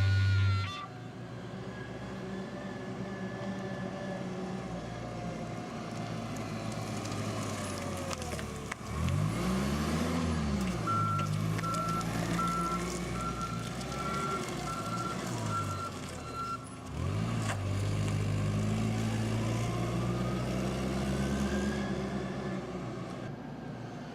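A work vehicle's engine running and revving up and down a few times, with a reversing alarm beeping steadily for about six seconds in the middle.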